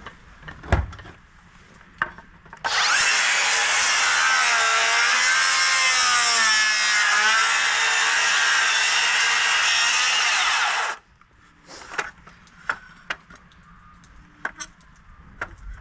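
Power saw cutting through timber for about eight seconds, starting about three seconds in and stopping sharply. Its motor pitch dips and wavers under load, likely while cutting a checkout (notch) in a framing stud. Short knocks and clicks of timber being handled come before and after the cut.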